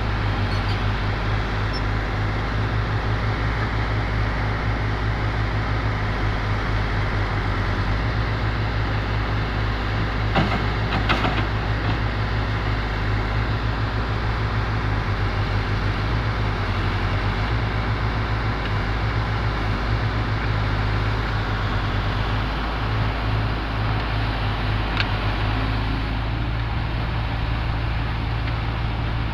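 Heavy diesel machinery engine running steadily under load, with a couple of short knocks about ten to eleven seconds in.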